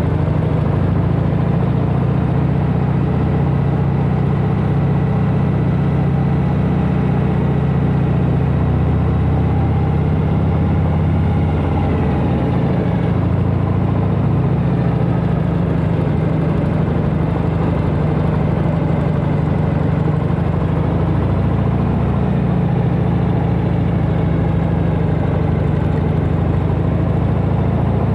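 1992 Harley-Davidson Heritage Softail Classic's 1340 cc Evolution V-twin running steadily under way, its note changing about twelve seconds in.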